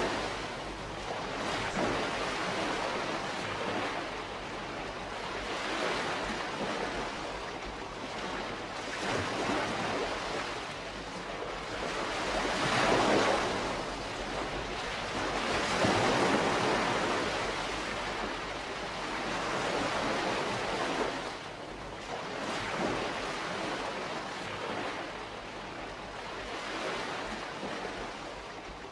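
Calm sea wash: small waves washing in and draining back, the noise swelling and ebbing every few seconds, with the biggest surges about halfway through.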